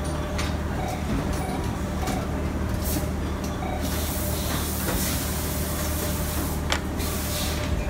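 Vertical plastic injection moulding machine running with a steady low hum and a faint steady tone. A hiss comes in about four seconds in and stops with a sharp click near seven seconds.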